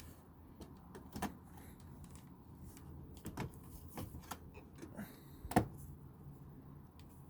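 Scattered light clicks and knocks of a power steering hose and its fittings being handled and positioned in a car's engine bay, the sharpest knock about five and a half seconds in.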